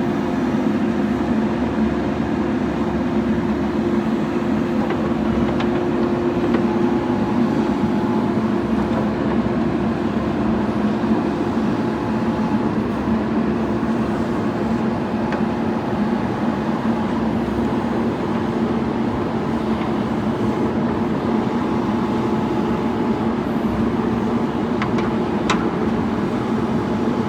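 Backhoe loader's diesel engine running steadily at an even pitch, with a couple of light clicks near the end.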